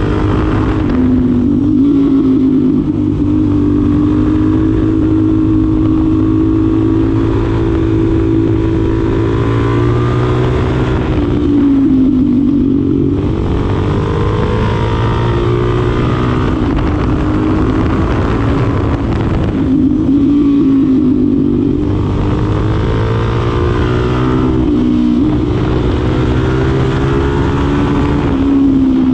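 Suzuki DR-Z4SM supermoto's 398cc single-cylinder engine running under way. Its pitch climbs slowly over several seconds, then dips and climbs back, about four times, as the throttle is opened and eased.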